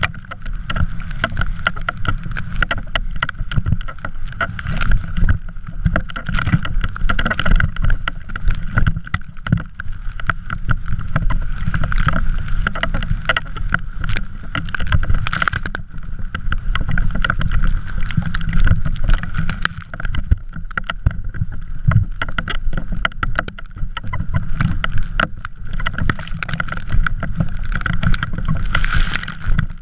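Drift trike running over snow: a constant low rumble with frequent rattling knocks from bumps and a steady high hum throughout, with wind on the microphone.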